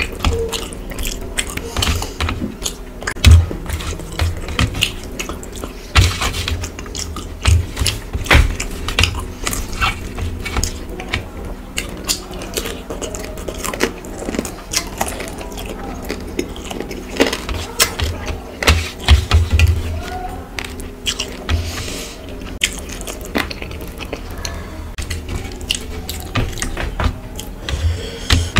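Close-miked eating by hand: fingers squishing and mixing rice with fish curry on a steel plate, clicking against the metal, and wet chewing and mouth smacks, in irregular clicks throughout.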